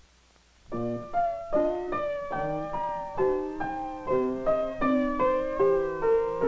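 Background piano music: a slow melody of single struck notes, about two or three a second, coming in just under a second after near silence.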